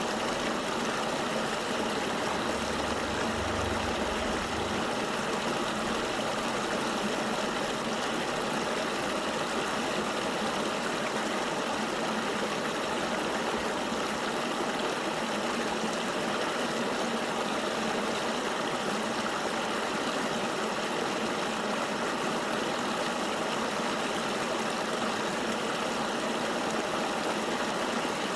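River water flowing steadily: an even rushing hiss that holds the same level throughout.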